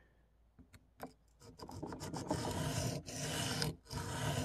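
Spyderco PM2 Tanto's M4 steel blade being stroked back and forth on a wet sharpening stone while grinding the edge bevel. A couple of light clicks come in the first second. After that there is a steady rasping scrape with brief pauses between strokes.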